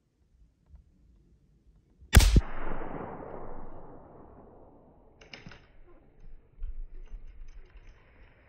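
A single gunshot about two seconds in, fired by a hunter aiming up into the trees. Its report echoes and dies away over the next couple of seconds, followed by faint handling clicks and rustling.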